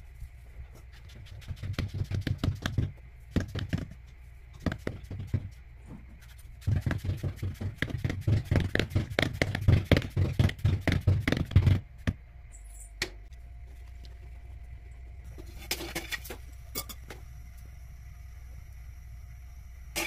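Hands patting and pressing rice-flour dough flat on a plate, a quick run of soft pats at about four or five a second, in bouts with the longest lasting about five seconds. About twelve seconds in it falls away to a low hum with a few faint clicks.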